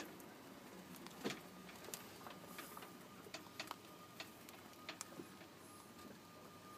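Young Flemish Giant rabbits munching grape leaves and stems: quiet, irregular crunching clicks, roughly one or two a second.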